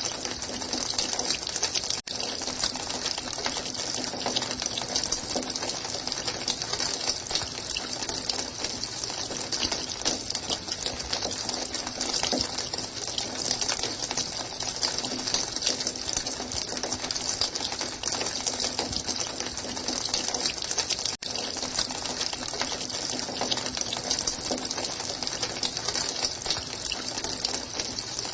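Running water, a steady continuous splashing rush that cuts out for an instant twice.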